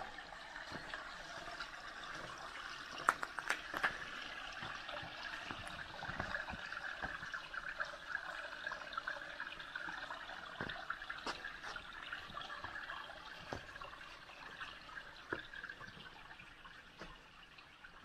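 A small spring-fed stream trickling and babbling over rocks as a steady, bright water noise. A few sharp taps come about three seconds in, and the water fades somewhat near the end.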